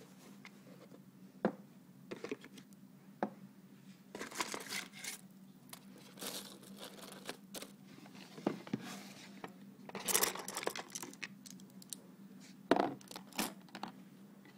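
Nail-art tools and supplies being handled on a tabletop: packaging rustling and crinkling in several bursts, with light knocks and clicks as items are set down.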